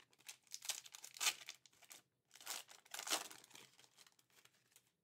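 Foil wrapper of a Fleer Ultra Marvel Midnight Suns card pack being torn open and crinkled in the hands, in two spells of crackling, loudest about a second in and again about three seconds in.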